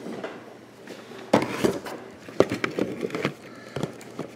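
Handling noise from a small plastic toy figure: a series of sharp clicks and knocks as it is worked free and set down on a wooden tabletop.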